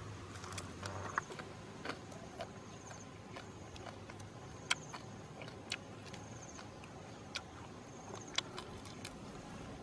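Eating sounds from a grilled lizard being picked apart by hand and chewed: irregular sharp clicks and smacks, roughly one a second, from the mouth and the small bones.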